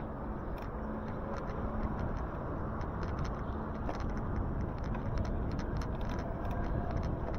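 Steady low rumble of wind and road noise from a moving e-bike on a wet morning ride, with many small ticks and crackles scattered throughout.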